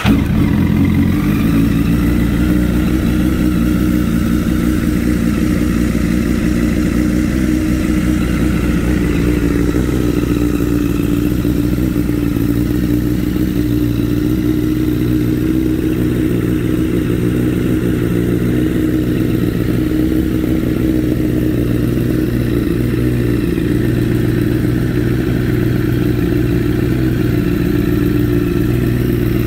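2009 Honda CBR1000RR's inline-four engine idling steadily through a Leo Vince GP Pro aftermarket exhaust, just after start-up.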